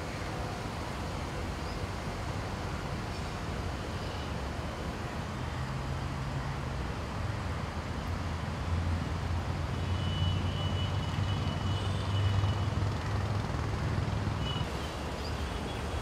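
Background road traffic: a low vehicle engine rumble that swells from about a third of the way in and eases off near the end.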